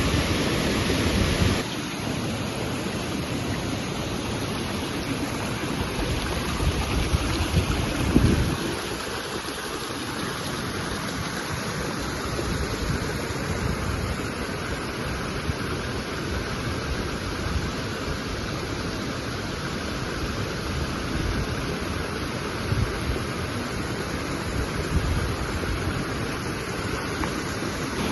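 Waterfall rushing steadily in a constant roar of water. Irregular low rumbling surges come and go, strongest about six to eight seconds in.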